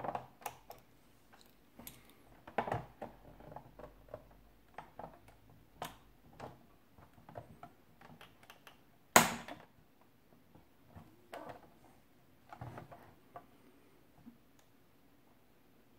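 Scattered clicks, taps and clatter of hand tools and the plastic toy being handled, with one loud sharp knock about nine seconds in.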